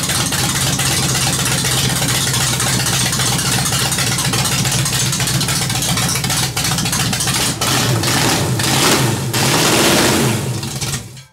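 Ford 302 small-block V8 running on open headers, a steady fast idle. Near the end it is revved up from the carburetor for a couple of seconds, then the sound falls away.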